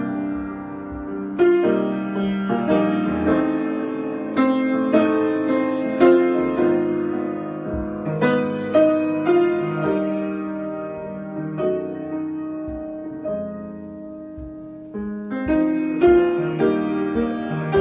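Solo piano playing an unhurried improvisation: struck chords and single notes left to ring and overlap. The playing grows quieter about two-thirds of the way through, then louder again near the end.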